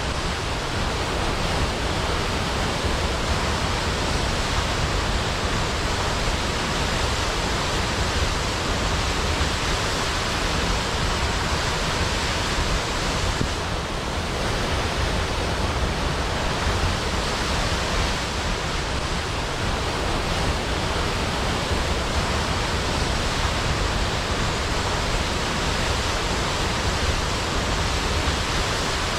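Large waterfall falling onto water: a steady, even rush of water.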